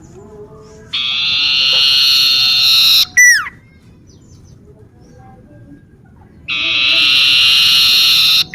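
Common iora (cipoh) singing: two long, even trilled phrases of about two seconds each, the first ending in a quick downward-sliding whistle.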